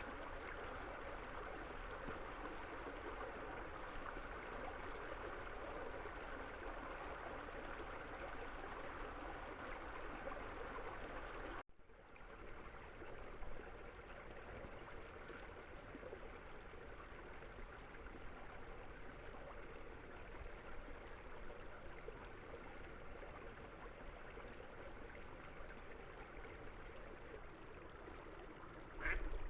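Water running steadily over a beaver dam. It cuts out briefly about twelve seconds in, then carries on a little quieter.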